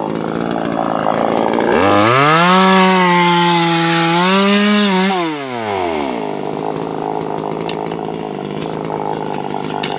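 Top-handle two-stroke chainsaw idling, then revved up at about two seconds in and held at high speed for about three seconds before dropping back to idle.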